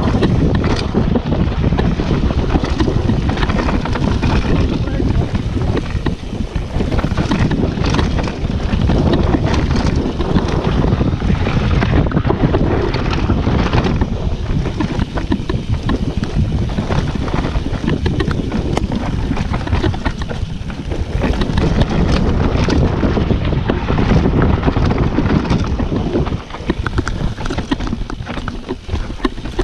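Mountain bike ridden fast down a dirt trail: wind buffeting the microphone over a steady rumble of the tyres on dirt, with frequent clatters and knocks from the bike over bumps.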